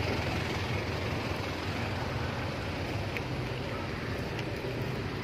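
Steady low hum of vehicle engines idling, under a constant wash of outdoor noise.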